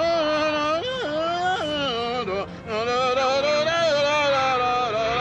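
A voice singing wordlessly in long held notes that slide up and down and waver, with a short break about halfway through.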